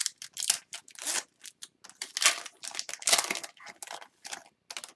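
Hockey card pack wrapper crinkling and tearing as the pack is opened and handled, in a quick irregular run of rustles that stops near the end.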